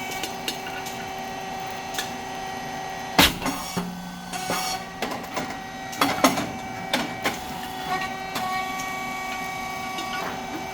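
Puffed rice cake machine running: a steady hum from its motor, hydraulic pump and fan, with a sharp pop about three seconds in as a mould opens and a cake puffs, followed by lighter clicks and clacks of the working machine.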